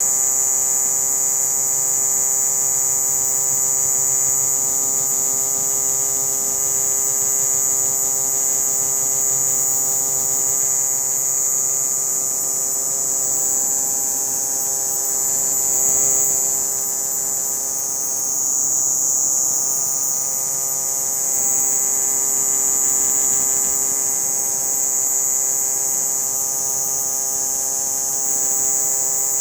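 Cicada calling with a continuous, steady, high-pitched buzz that swells slightly about sixteen seconds in.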